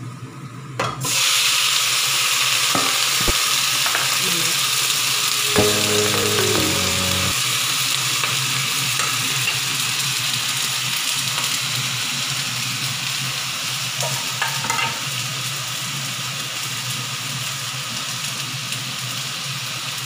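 Chopped chicken pieces and ginger slices sizzling in hot oil in a wok. The sizzle starts loud about a second in and slowly eases.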